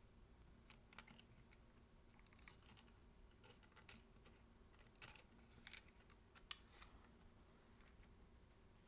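Faint, scattered small clicks and taps of small camera parts being handled and fitted back into place inside a Sony a7s body, one a little louder past the middle.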